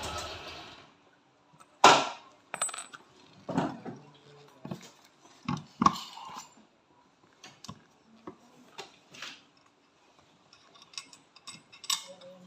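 Metal parts and hand tools clinking and knocking as they are handled and set down during scooter CVT work: about a dozen separate sharp clinks, the loudest about two seconds in. A steady hiss fades out in the first second.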